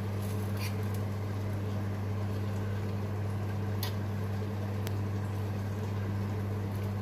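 Steady low electric hum of a running oven, with a few light clicks of a fork against a roasting tray of chicken pieces.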